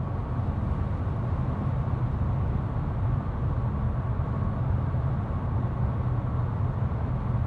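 Interior noise of a 2021 Kia Sorento 2.2 CRDi diesel SUV cruising at 130 km/h: a steady mix of road and wind noise over a low drone. It reads about 68 to 70 dB(A) on the meter, with the ventilation fully closed.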